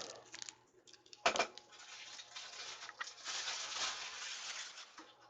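Trading cards being handled on a table: a knock a little over a second in, then a few seconds of soft sliding and rustling.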